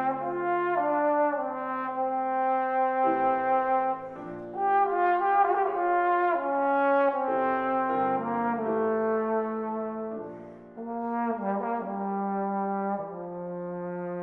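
Trombone and grand piano playing a classical piece: held trombone notes moving in steps over piano chords, with brief breaks between phrases about four seconds in and again about ten and a half seconds in.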